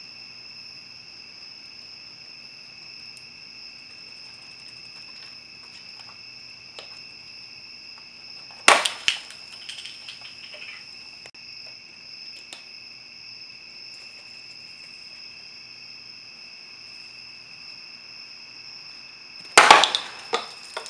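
Plastic Gatorade bottles bursting with sharp, loud pops, blown by the gas pressure of baking soda reacting with vinegar: once about nine seconds in and again near the end, the second time as a quick cluster of cracks. Night insects trill steadily throughout.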